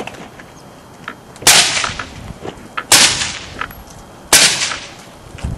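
Three suppressed gunshots from a gun fitted with an AAC Cyclone silencer, about a second and a half apart, each a sharp crack with a short fading echo.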